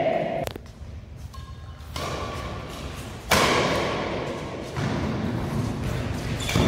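Badminton rally: sharp racket hits on a shuttlecock, a thin click about half a second in and a much louder strike a little over three seconds in, mixed with players' footfalls thudding on the court.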